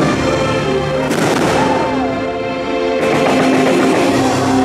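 Show music with fireworks bursting over it, a sharp burst about a second in and another at about three seconds.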